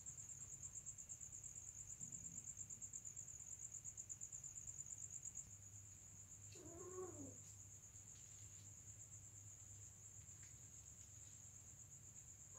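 Faint, steady high-pitched trill of crickets, and about six and a half seconds in, one short cat yowl that rises and falls in pitch, from a tom mounting a female cat.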